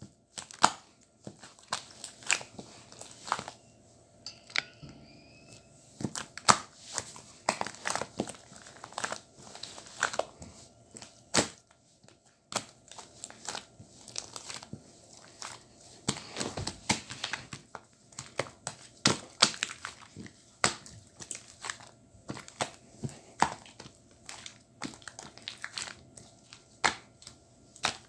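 Irregular crinkling and sharp clicks, as of something being handled close by, with a faint wavering high sound about four to five seconds in.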